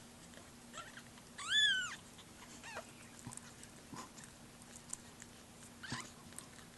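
Very young bottle-fed kitten giving one loud, high mew that rises and falls, about one and a half seconds in, followed about a second later by a fainter, shorter mew.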